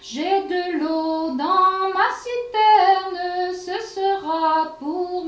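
A girl singing a traditional French folk song solo and unaccompanied, one voice holding notes in short sung phrases.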